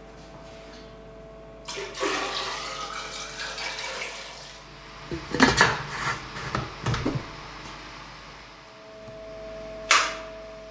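Water rushing and splashing for about three seconds, followed by a few knocks and clatters, and a single sharp click near the end, over a faint steady hum.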